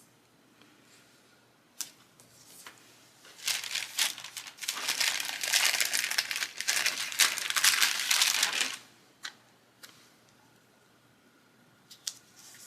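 Paper crinkling and crackling for about five seconds, starting a few seconds in, after a single click. It is the sound of a sticker sheet being handled and crumpled.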